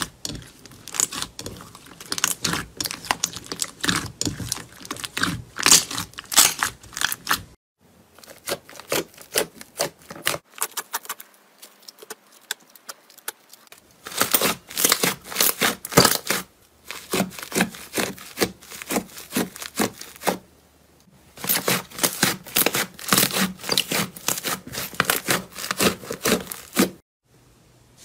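Hands squeezing and kneading thick slime, which gives off rapid wet crackling and popping as air pockets burst. The sound comes in several bursts with short breaks between them, and is softer and sparser in the middle.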